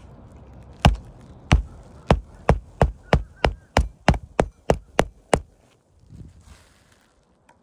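Steel hammer driving a roofing nail through an asphalt shingle by hand: about a dozen sharp strikes, the first few spaced out, then about three a second, stopping about five and a half seconds in.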